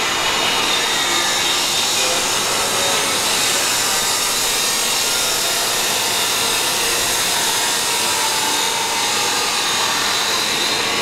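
Steady hissing rush of an automotive lift being lowered, with no engine running.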